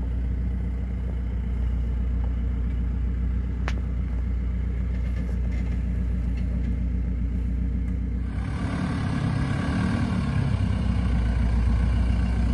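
Jeep Wrangler Rubicon's engine running at low revs as it crawls over rough off-road ground, a steady low rumble. About eight seconds in the sound changes abruptly and a brighter hiss joins the rumble.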